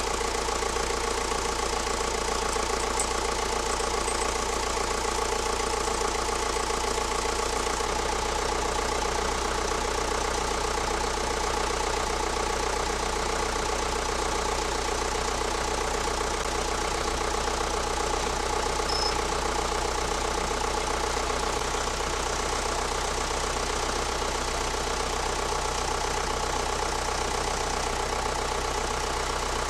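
Kubota tractor's diesel engine running smoothly at a steady speed.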